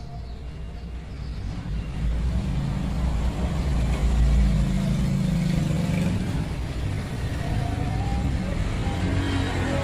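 A steady low rumble that swells about two seconds in and is strongest around four to six seconds in.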